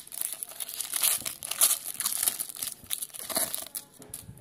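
A Panini Crown Royale trading card pack's foil wrapper being crinkled and torn open by hand, a quick run of irregular crackles that dies away near the end.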